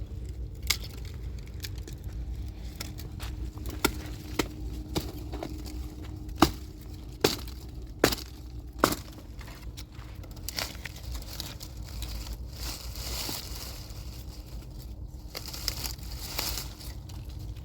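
A series of sharp knocks or cracks, about eight of them at irregular intervals, over a steady low rumble. Later they give way to a rustling hiss.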